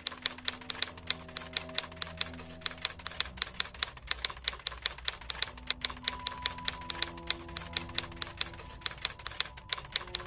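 Typewriter keystroke sound effect, a steady run of sharp clacks at about five a second as the on-screen text is typed out, over soft sustained background music.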